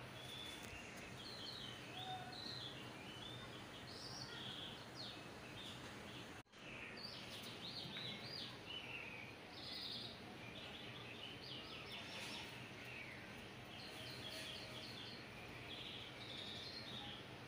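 Small birds chirping in short, repeated calls over a faint steady hiss, with a brief dropout about six and a half seconds in.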